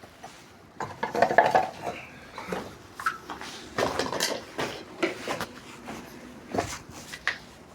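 Metal plumbing fittings and tools clinking and knocking against each other in an irregular clatter that starts about a second in.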